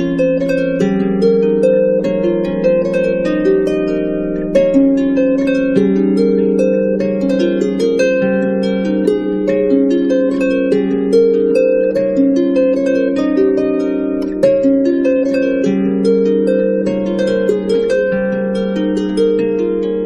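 Background music on a harp-like plucked string instrument: a steady flowing melody of sustained, overlapping notes.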